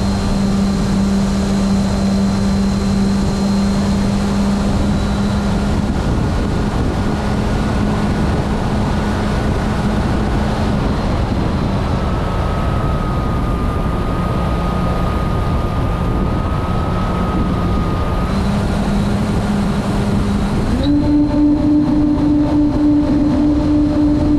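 Radio-controlled model airplane's motor and propeller heard from a camera mounted on the plane: a steady hum over wind rushing across the microphone. The pitch drops a little about ten seconds in, then rises in two steps later on before easing down near the end.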